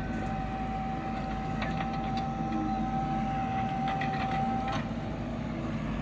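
Backhoe loader's diesel engine running steadily at a distance, with a steady high whine over it that stops about five seconds in, and a few light clicks.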